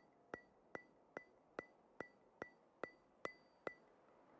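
Background music: a sparse, evenly spaced ticking beat of about two and a half bright, ringing clicks a second, which stops near the end.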